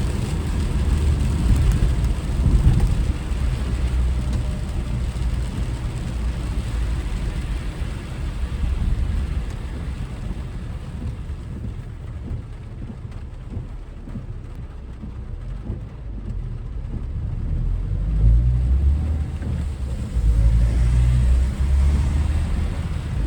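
Car driving in typhoon weather: a low road and tyre rumble with a hiss of rain and wet road. It eases off about halfway through, then swells again near the end as the car picks up speed.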